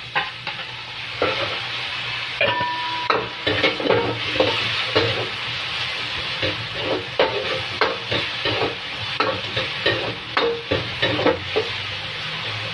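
Tuna frying in melted margarine in a wok, sizzling steadily while a spatula stirs it, with frequent short scrapes and clicks against the pan.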